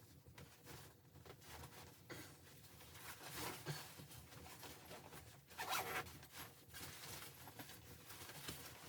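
Faint, irregular rustling and scraping, like fabric or gear being handled, louder about three and a half seconds in and again near six seconds.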